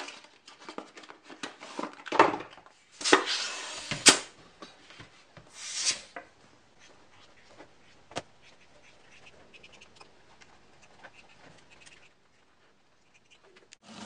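Handling noise as a bicycle inner tube's cardboard box is opened and the rubber tube is worked over a plywood wheel: several loud scraping rubs and a sharp click in the first six seconds, then one more sharp click and faint rubbing.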